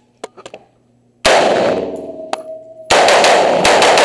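AR-15 rifle fired on an indoor range: a few light clicks, then a single shot about a second in, and a rapid string of shots from about three seconds in. Each report has a long echo off the range walls.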